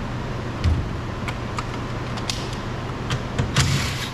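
Scattered clicks and knocks of a hand tool undoing the door mirror's 10 mm mounting fasteners, with a short rasping burst near the end. A steady low hum runs underneath.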